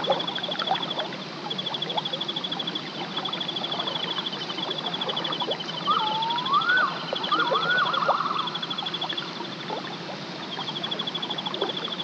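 Pond-side wildlife sounds: a high, rapid trill repeated in short runs, with a few swooping whistled calls in the middle and light splashes of water.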